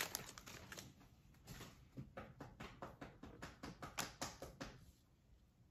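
A string of faint, irregular clicks of glossy Topps Chrome baseball cards being flipped through by hand, each card slid off the stack against the next.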